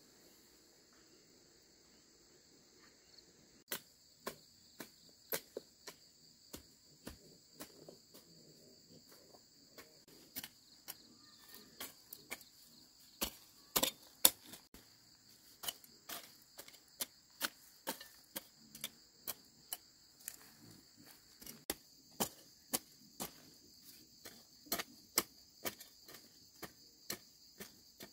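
A hoe chopping into the soil between cabbage plants, a sharp strike about twice a second, uneven in strength, beginning about four seconds in. Insects drone high and steady underneath.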